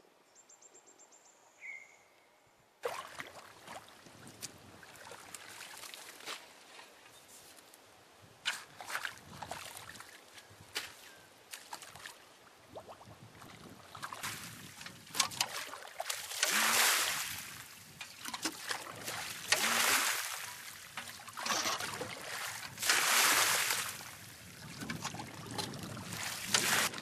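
Muddy water sloshing and splashing as a bucket is scooped through a shallow spring hole being dug out, starting about three seconds in. Three longer, louder bursts of splashing come in the second half.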